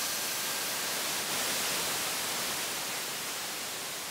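Steady rushing hiss with no tone in it, slowly fading toward the end.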